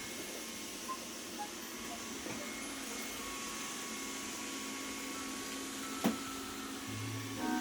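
Robot vacuum cleaner running with a steady hum and whir. A sharp knock about six seconds in.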